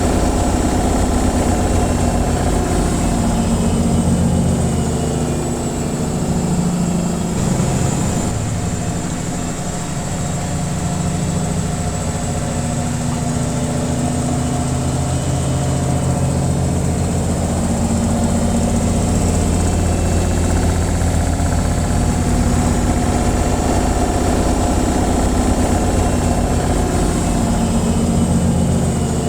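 Washing machine on its spin cycle: a steady motor hum with a fast rumble from the spinning drum, dipping slightly in level around eight seconds in.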